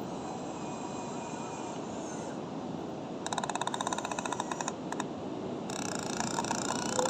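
Excavator running steadily, with a rapid metallic clicking rattle starting about three seconds in and lasting over a second, then another rattling stretch near the end.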